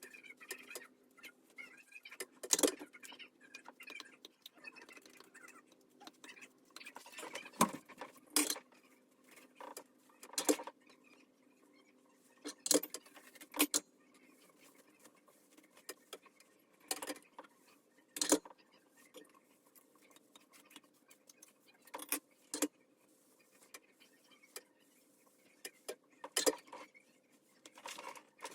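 Hair tools being handled: scattered sharp clicks and clacks, about a dozen at irregular intervals, over a faint steady hum.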